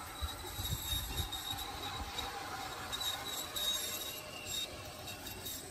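G-scale model trains running on outdoor garden track, with a steady high-pitched whine and light wheel squeal. Brief extra squeals come about three to four and a half seconds in.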